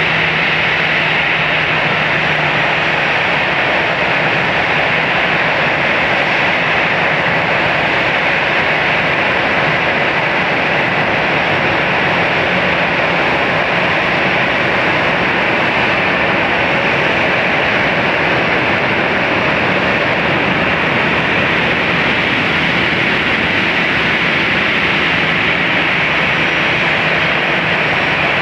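Airbus A320 jet engines running at idle as the airliner taxis in, a steady, even noise that does not change.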